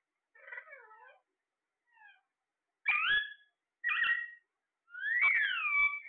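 Alexandrine parakeets calling: a quieter warbling call, then three loud calls about a second apart, the last a long one that rises and then falls.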